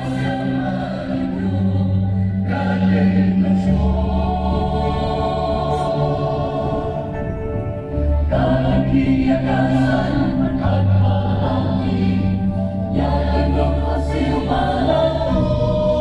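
Church choir singing a hymn in harmony, holding long chords over a steady bass line, the chord changing about every five seconds.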